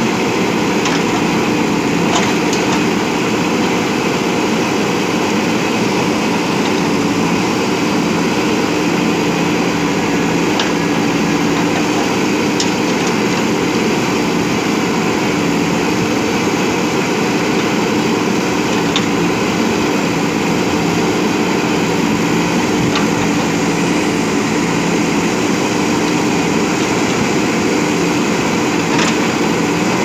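JCB 3DX backhoe loader's diesel engine running steadily under digging load as the backhoe arm works, with a few faint clicks now and then.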